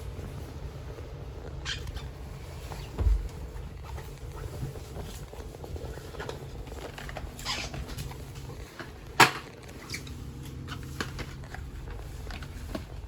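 Alexander Dennis Enviro 400 MMC double-decker bus engine running with a steady low rumble, with scattered knocks and rattles over it. There is a dull thump about three seconds in and a sharp click about nine seconds in.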